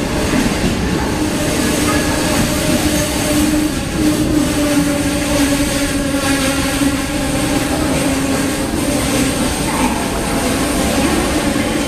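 China Railway 25K passenger coaches rolling past along a station platform as the train arrives, a continuous loud rumble of wheels on rail with a steady whine running underneath.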